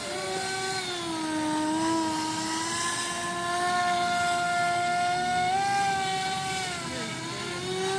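Aquacraft Cajun Commander RC airboat's small engine and air propeller running with a steady high whine, the pitch dipping and rising as the throttle changes through its passes and turns.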